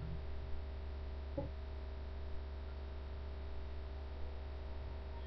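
Steady electrical mains hum with a few faint steady tones above it, and a faint click about a second and a half in.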